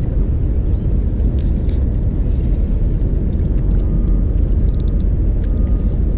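Wind buffeting an action camera's microphone: a loud, steady low rumble, with a few faint clicks about three-quarters of the way through.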